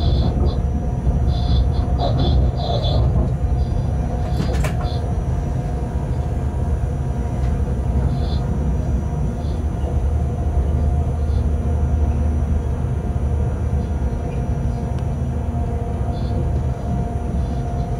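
Cab of a moving freight train: the steady low rumble of the train running along the track. Short high-pitched sounds come now and then, with a sharp click about four and a half seconds in.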